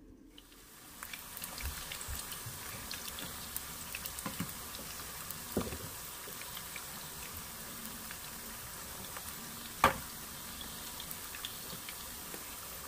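Potato wedges frying in shallow oil in a nonstick wok: a steady sizzle with small crackles that builds up in the first second. One sharp click, the loudest sound, stands out about ten seconds in.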